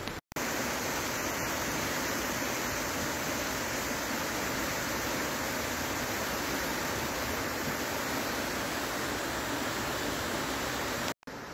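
Muddy floodwater rushing past, a steady even roar of moving water.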